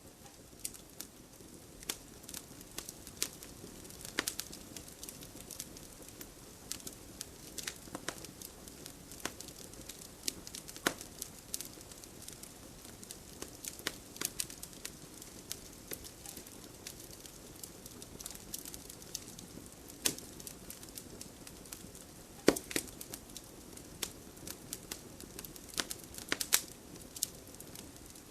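Wood fire burning in a fireplace, crackling with irregular sharp pops over a soft steady hiss. The loudest pop comes a little over three-quarters of the way through.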